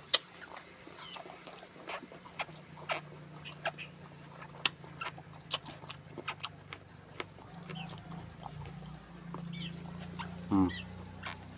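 Close-mouthed eating sounds of someone chewing kinilaw of raw fish and squid: irregular wet smacks and clicks, one every half second or so. A low steady hum runs underneath, and a brief pitched vocal sound comes near the end.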